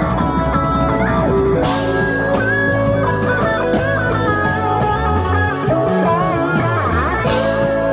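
Live psychedelic rock band playing an instrumental passage: electric guitar lead with bending notes over bass guitar, keyboard and drums. Cymbal crashes come about two seconds in and again near the end.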